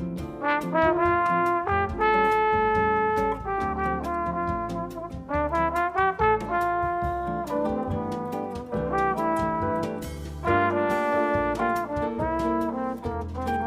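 Background music led by brass instruments, held melodic notes over a steady beat.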